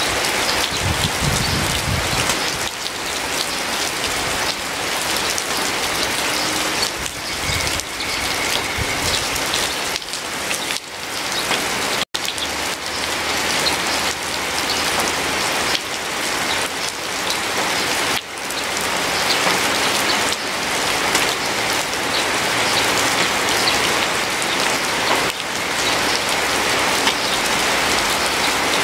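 Steady rain falling, with drops pattering on a surface. The sound cuts out for a split second about twelve seconds in.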